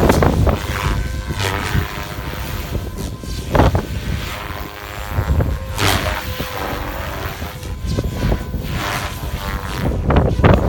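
SAB Goblin 700 electric RC helicopter flying, its motor and rotor whine shifting in pitch as it manoeuvres. Repeated strong gusts of wind buffet the microphone.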